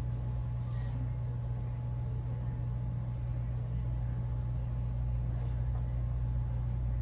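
Steady low mechanical hum with a few faint, light clicks scattered through it.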